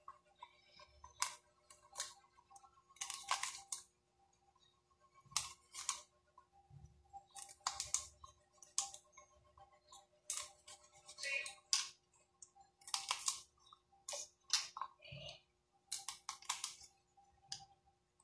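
Kitchen knife cutting through water spinach stems onto a plastic cutting board: crisp cuts and taps in short irregular runs, a few a second, with brief pauses.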